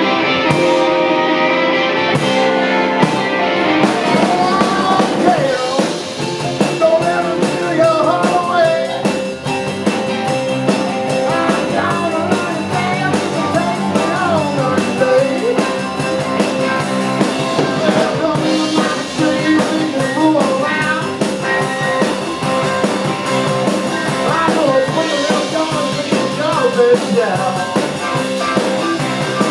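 Live rock and roll band playing. A guitar opens, and the drums and a lead vocal join after a few seconds.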